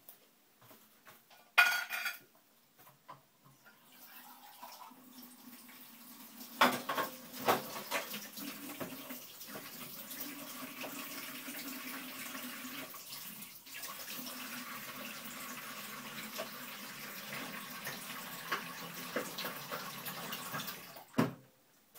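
Kitchen tap running into a sink for about fifteen seconds, with pots and cutlery clattering. There is a sharp clank a couple of seconds in, and the water stops with a knock near the end.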